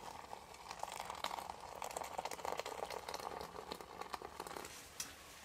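Water poured in a steady stream into a mug to make a hot drink, splashing onto the powder. The pour stops about four and a half seconds in, followed by a single light click.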